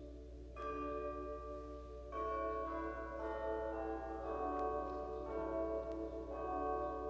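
Church bells ringing: separate strokes that ring on and overlap, with a quick run of strokes in the middle, each lower in pitch than the last.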